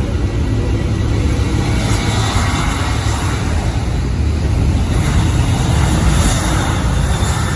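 Jet airliner engine noise: a loud, steady rumble with a broad roar above it.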